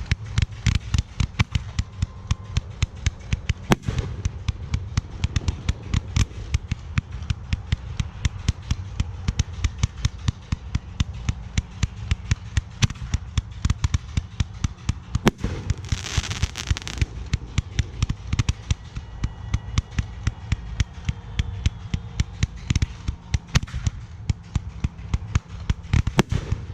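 Fireworks display: a rapid, dense string of bangs and pops, several a second, with a short burst of hissing about sixteen seconds in.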